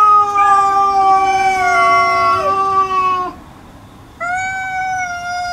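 Two cats yowling at each other in a territorial standoff. Two long, drawn-out yowls overlap for about three seconds and stop together. After a short pause, a single long yowl starts a little past four seconds.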